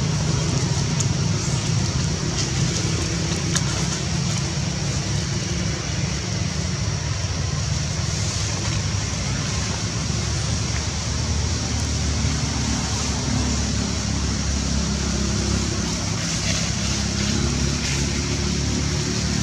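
Steady outdoor background noise: a constant low rumble with a high hiss over it, with no distinct events.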